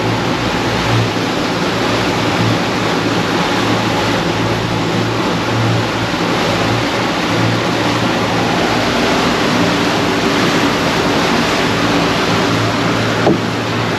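Boat's outboard motor running steadily at trolling speed, a low hum under the loud rushing wash of the wake and sea. A short knock near the end.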